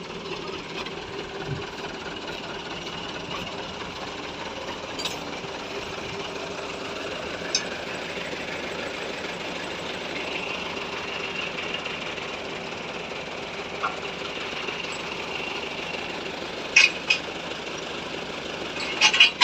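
Truck engine running steadily, with a few short sharp knocks, the loudest coming near the end.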